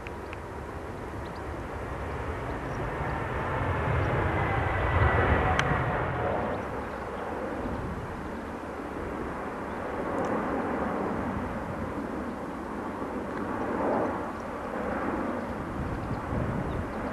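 Boeing 787 Dreamliner's jet engines on a display fly-by: the jet noise swells to its loudest about five seconds in, with a whine falling in pitch as the airliner passes. A steady rumble follows, with a smaller swell near the end.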